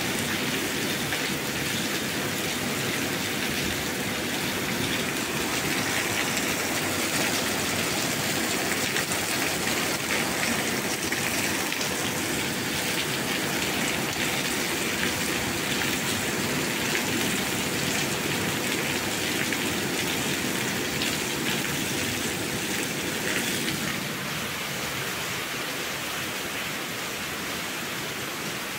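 Steady rain, an even hiss of falling water. About 24 seconds in it drops a little and thins.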